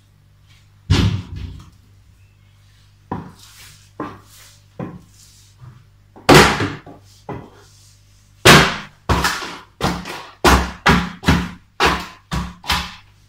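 Platform high heels striking a tiled floor: a few scattered sharp heel clicks, two of them much louder, then steady steps about two a second over the last few seconds. Some of the steps come down on pieces of cake and on a sheet of newspaper.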